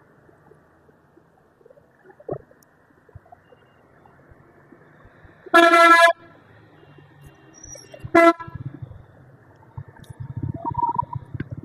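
A vehicle horn honks twice: a half-second blast about halfway through, then a short toot a couple of seconds later. A low, uneven rumble follows near the end.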